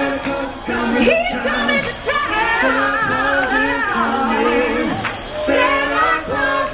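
Several voices singing a song together in harmony, with a wavering vibrato on the held notes.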